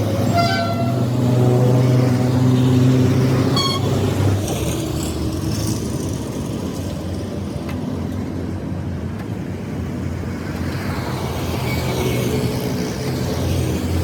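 A vehicle horn sounds for about four seconds over the steady noise of engines and traffic, which carries on after it.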